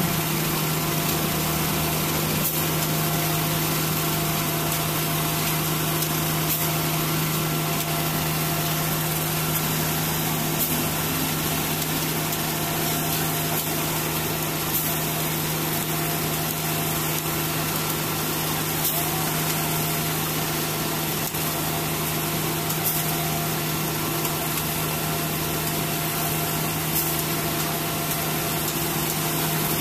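Concrete mixer truck running steadily while it discharges concrete down its chute, a constant hum that holds one pitch without change.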